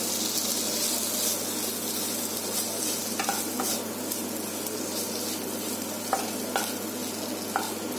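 Onions and shredded cabbage sizzling in a non-stick kadai while a spatula stirs and tosses them, with a few short scrapes and taps of the spatula against the pan.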